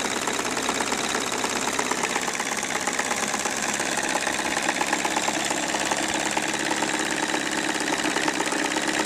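Scale-model four-cylinder, four-stroke diesel engine with a cast-iron block running steadily, a fast, even clatter of firing strokes.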